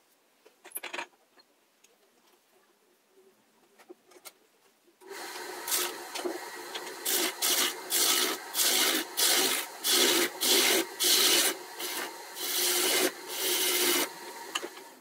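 A few faint clicks, then a wood lathe starts up about five seconds in and a turning tool cuts the spinning magnolia in short, loud scraping bursts about twice a second over the motor's steady hum, all sped up four times.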